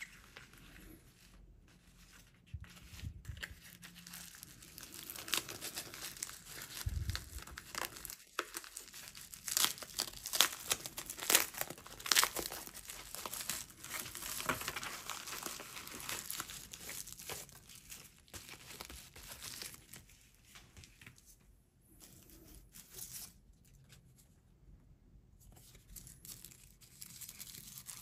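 A plastic bubble mailer and tissue-paper wrapping crinkling and rustling as they are handled by hand, with a run of sharp, loud crackles about ten to thirteen seconds in.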